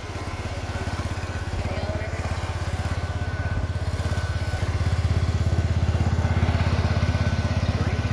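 Cub Cadet garden tractor's engine running as it drives up, with a fast even putter that grows louder over the first five seconds and then holds steady.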